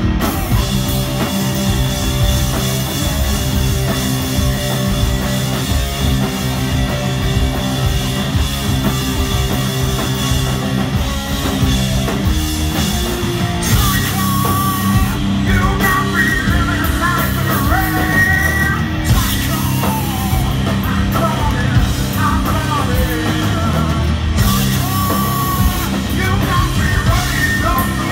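Live stoner rock band playing loudly: distorted electric guitars, bass and drums, with a singer shouting and singing into the microphone, the voice most prominent in the second half.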